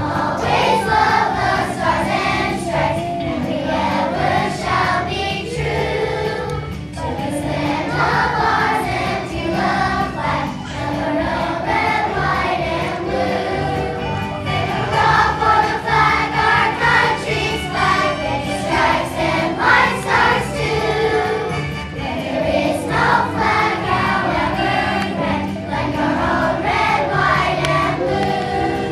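A choir of young children singing a patriotic song together, with instrumental accompaniment.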